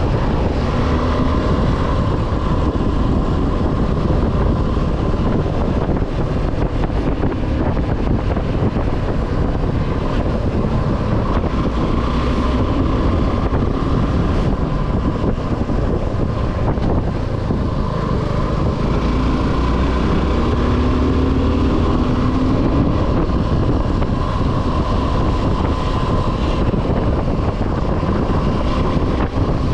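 Suzuki V-Strom 250 SX's single-cylinder engine running on the move, its pitch rising and falling with the throttle a few times, most clearly past the middle, under heavy wind noise on the camera microphone.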